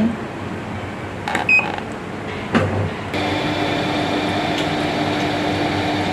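Automatic washing machine starting its cycle after the start button is pressed: a short beep about a second and a half in and a click about a second later. Then, from about three seconds in, a steady humming run sets in and holds.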